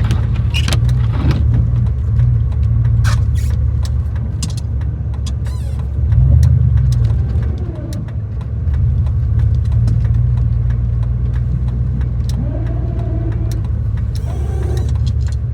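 Gas 3/4-ton pickup truck's engine running steadily with a low rumble while plowing snow. It swells briefly about six seconds in, then eases off.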